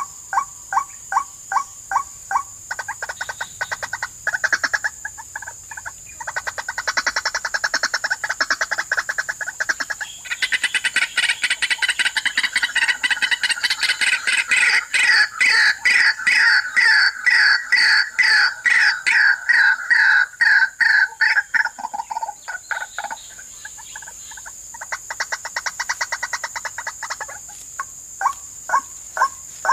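White-breasted waterhen calls played as a bird-trapping lure: a loud repeated call, about two a second, that builds into a dense run of overlapping, rapid calls in the middle and thins back to single repeated calls near the end. A steady high-pitched whine runs underneath.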